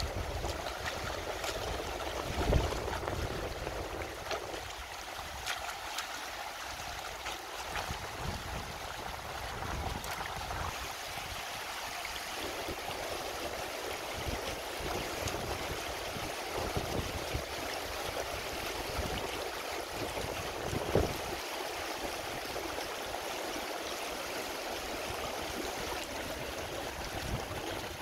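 Shallow river rippling steadily over rocks. A couple of louder splashes come from hands working a chicken in the water.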